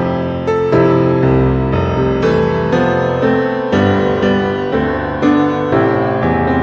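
Piano-led background music, a new note struck about every half second.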